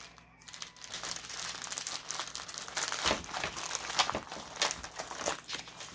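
Plastic packaging and bags crinkling as they are handled, an irregular run of crackles with a few louder crumples partway through.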